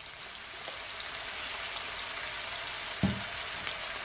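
Sliced carrot, onion and peppers sizzling steadily in a shallow layer of hot oil in a frying pan, with white vinegar just added. A short low thump about three seconds in.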